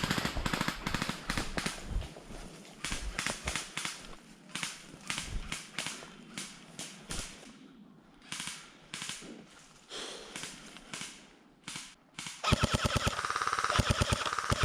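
Airsoft rifles firing in rapid bursts, strings of quick sharp clacks. About twelve seconds in, a louder, closer long burst starts, with a steady motor whine under the shots.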